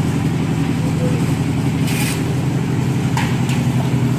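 An engine running steadily at a constant speed, with two brief noisy strokes over it, about two and three seconds in.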